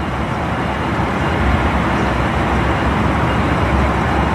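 Steady low rumble of idling emergency vehicles.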